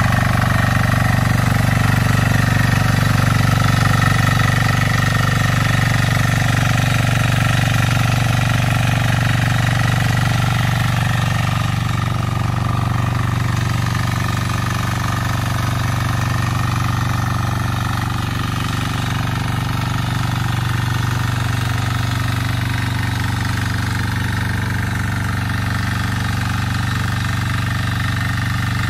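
Single-cylinder 173F diesel engine of a walk-behind mini tiller running steadily under load while tilling mud.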